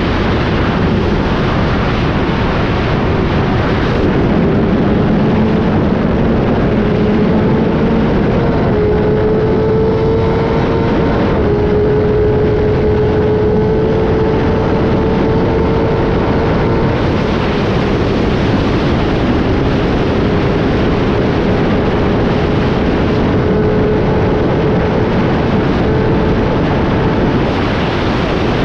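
Motorcycle engine running at a steady cruise with a slight rise in pitch about a third of the way in, under heavy wind rush on the microphone.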